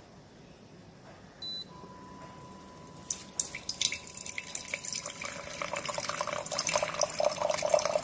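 Instant hot water dispenser gives a short beep, then a faint steady whine starts. Water from its spout splashes into a mug, the pouring sound growing louder as the mug fills.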